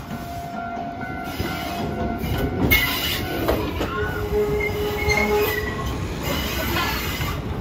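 Shizuoka Railway 1000 series electric train running slowly through depot pointwork. Its wheels squeal on the tight curves, with high-pitched squeals coming and going over the rumble and clatter of the running gear from about three seconds in.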